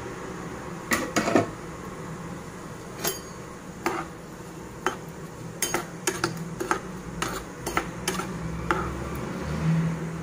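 Slotted spatula knocking and scraping against a non-stick frying pan as chopped onions are stirred in oil, in a run of irregular clinks.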